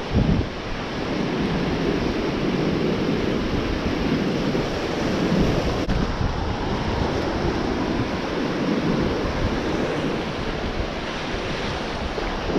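Shallow surf washing and churning close to the microphone, with wind buffeting it.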